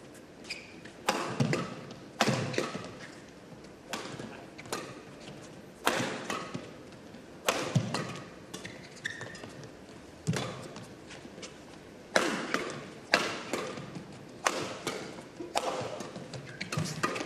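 Badminton rackets striking the shuttlecock in a doubles rally: sharp, irregular hits, one every second or two.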